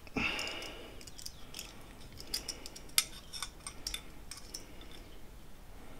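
Metal caliper being slid and closed onto a steel folding-knife blade: a short metallic scrape at the start, then a scatter of light metal clicks and taps, the sharpest about three seconds in.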